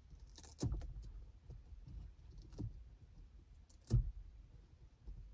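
Handling noise as a baby car monitor camera's mounting strap is fastened around a car headrest: scattered clicks and knocks, the two loudest about a second in and at about four seconds, over a low rumble of rubbing and tugging.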